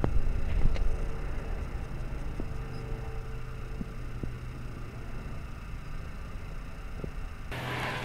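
Steady low rumble with a few faint clicks; about seven and a half seconds in, a higher hiss joins it.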